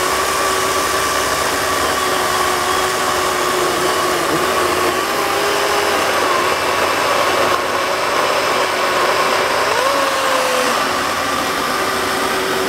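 A 24-volt cordless electric chainsaw with a 12-inch bar cutting through a fallen oak: a steady motor whine over the rasp of the chain in the wood. About ten seconds in, the motor speeds up briefly, then slows back down under load.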